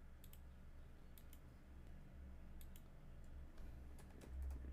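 Faint clicks of a computer mouse and keyboard: short pairs of clicks about a second apart, over a low steady hum.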